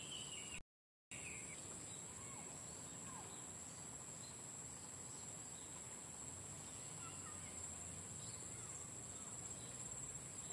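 A steady, high-pitched insect drone of crickets or similar insects, with a few faint bird chirps now and then. The sound cuts out completely for about half a second just under a second in.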